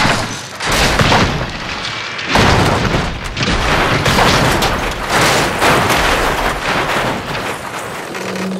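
A car rolling over in a crash, a series of heavy crashes of the body striking the ground one after another. A steady low tone begins just before the end.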